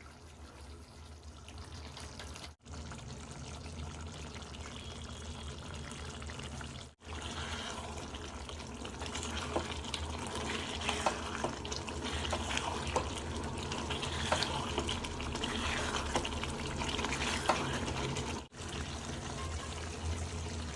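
Chicken and masala sizzling in a pan: a steady sizzle with scattered sharp crackles and spatters, louder from about seven seconds in. It breaks off briefly three times.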